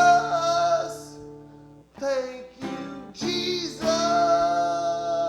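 A voice singing long held notes over a strummed acoustic guitar: one held note at the start, a short phrase, then another long held note near the end.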